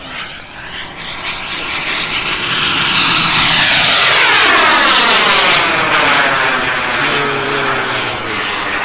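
Radio-controlled model jet's turbine engine making a close pass. A loud rushing whine builds to a peak about four seconds in, then drops in pitch and fades as the jet goes by and draws away.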